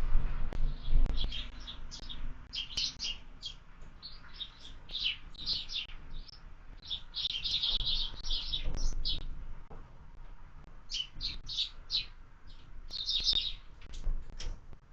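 Small songbirds chirping at a window bird feeder: many short, high chirps in quick clusters, with a few dull low knocks and rumbles near the start.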